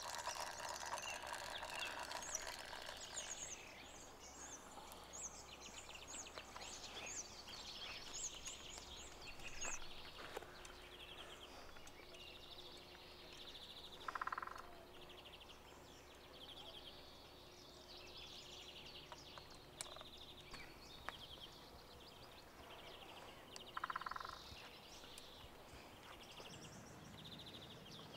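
Faint outdoor ambience of birds chirping and singing in many short repeated phrases, with two brief louder calls about 14 and 24 seconds in.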